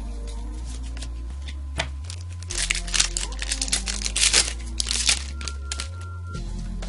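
Foil booster-pack wrapper crinkling and tearing as it is opened, a dense burst of rustling lasting about three seconds in the middle, over background music.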